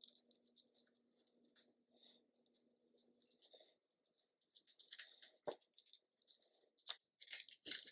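Faint crinkling and scratching of a strip of tape being peeled off and handled, with cotton cord rustling against a wooden ring. A few sharper clicks come in the second half.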